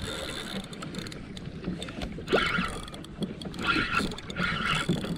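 Water slapping and sloshing against the hull of a plastic fishing kayak, with irregular surges of louder noise while a fish is being brought up.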